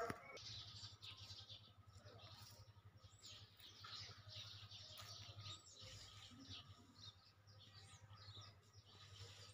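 Faint chirping of small birds: many short high calls with a few quick whistled glides scattered through, over a low steady hum.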